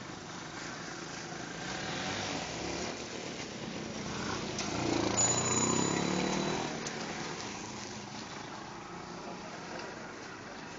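Motorcycle engine passing close by, swelling to its loudest about halfway through and then fading, over a steady bed of road and street noise.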